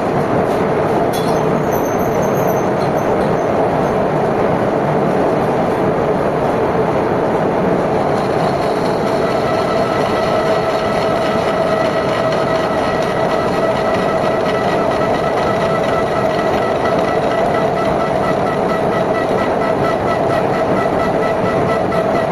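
Metal lathe running while it machines a bell crank bore: a loud, steady mechanical noise, with a steady whine coming in about nine seconds in.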